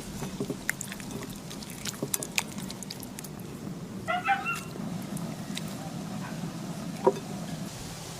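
A single short, pitched animal cry about four seconds in, over scattered sharp clicks and knocks and a steady low hum.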